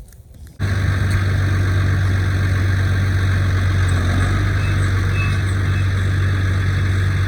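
Tractor engine running steadily at close range, a loud, even low hum that cuts in abruptly just under a second in.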